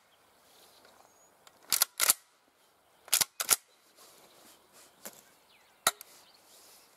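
MP-153 semi-automatic 12-gauge shotgun being unloaded by hand: sharp metallic clacks of the action being worked to clear the shells. There are two quick pairs of clacks about a second apart, then a single clack near the end.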